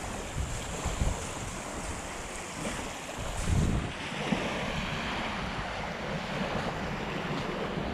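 Wind buffeting the microphone over the steady wash of open water, with a stronger gust about three and a half seconds in.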